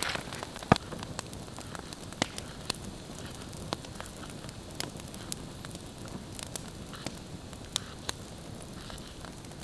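Wood campfire crackling, with irregular sharp pops over a steady hiss, mixed with a knife cutting a red onion on a wooden log stump.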